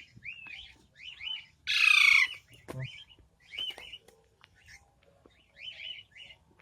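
Pet parrot making a run of short, arched chirps, with one loud, harsh screech about two seconds in.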